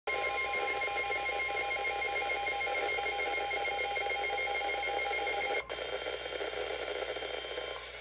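Midland NOAA weather alert radio sounding its warning alarm for a flash flood warning: a loud, fast-pulsing electronic beep that cuts off suddenly about five and a half seconds in. A softer hiss of radio static follows.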